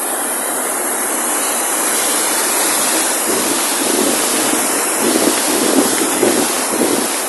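Floodwater rushing, a loud steady noise. Wind buffets the microphone in uneven gusts from about three seconds in.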